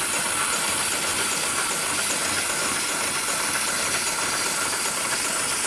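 Heavy-duty programmable sewing machine for webbing and slings running: a steady mechanical hiss with faint regular ticks about twice a second.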